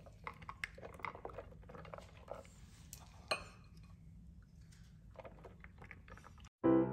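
Faint, irregular patter and rustle of shredded cheddar being sprinkled by gloved fingers onto sauced potato slices in a glass baking dish. Near the end it cuts out and piano music starts.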